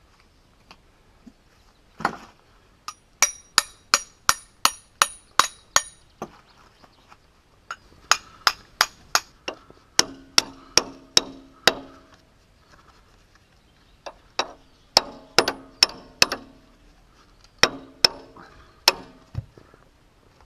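A hammer striking a metal part again and again, about three blows a second in three runs with short pauses between, each blow ringing.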